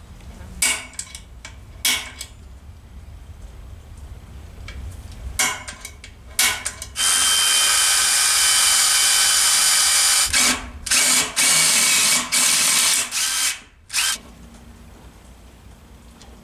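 A few sharp clicks of parts being handled, then a power drill runs for about three seconds and in several short bursts before stopping.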